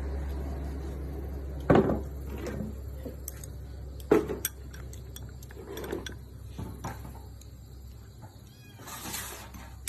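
Dishes and utensils knocking and clinking on the table several times, the two loudest knocks about two seconds apart early on. Near the end comes a small animal's brief high calls, sliding in pitch.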